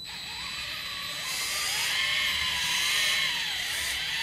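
Electric CADA micro-motors of a motorized LEGO Technic truck whining as they drive it, the pitch wavering up and down with the throttle and a little louder from about a second in.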